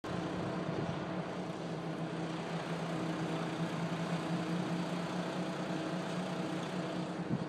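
A vehicle engine idling steadily, a constant low hum with a few held tones.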